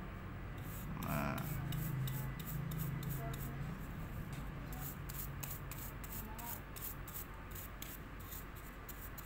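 Stiff bristle brush scrubbing hair clippings off the blade of a Kemei hair clipper that is switched off: a steady run of quick, short scratchy strokes, a few per second.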